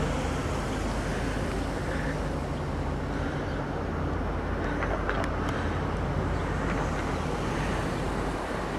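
Steady outdoor background noise: a low rumble and hiss with a faint steady hum underneath and a couple of faint clicks.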